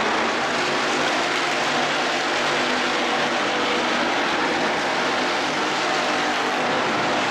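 A field of IMCA hobby stock race cars running at speed on a dirt oval, their engines blending into one loud, steady noise.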